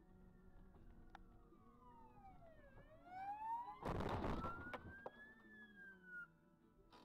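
Emergency-vehicle siren wailing, its pitch sliding slowly down and then back up. A loud burst of noise lasting under a second cuts in about four seconds in.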